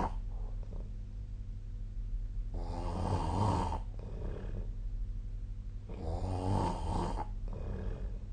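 A sleeping person snoring: two long, rough, fluttering snores about three and a half seconds apart, each lasting a little over a second, with the tail of another at the very start.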